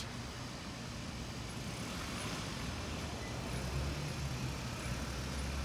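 2022 Hyundai Santa Fe moving slowly under remote smart parking control, its engine running with a steady low hum that gets louder near the end.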